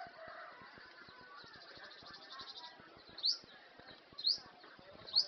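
A bird calling: three short, sharp high chirps, each rising in pitch, about a second apart in the second half. Before them there is a brief fast, high pulsing trill over a faint outdoor background.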